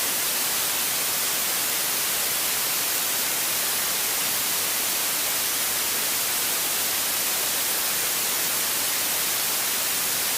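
Steady, even static hiss with no distinct engine note or other events standing out.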